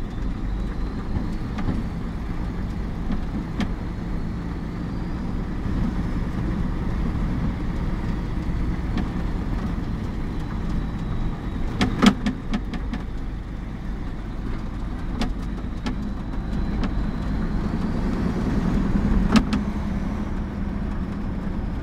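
Cab sound of a Mercedes-Benz mixer truck's diesel engine running steadily while driving on a rough road, rising a little near the end. Sharp knocks and rattles come in a cluster about halfway through and once more near the end.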